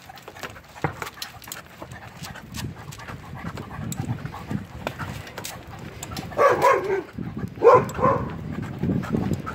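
Husky panting as it runs ahead pulling a bicycle, over a steady low rumble of the tyres on concrete sidewalk. Two short, louder voice-like calls come past the middle.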